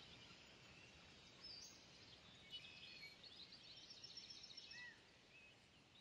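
Near silence: faint woodland ambience with a few faint, high bird chirps in the middle.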